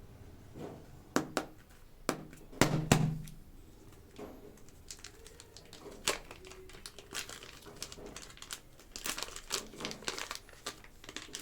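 Plastic packaging of air-dry super clay crinkling and crackling as it is handled and opened, with scattered sharp clicks and snaps. The loudest cluster comes about two and a half seconds in, and a dense run of crinkles comes near the end.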